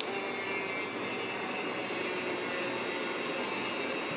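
Handheld mini electric drill running with a steady whine as its small bit drills into an MDF disc.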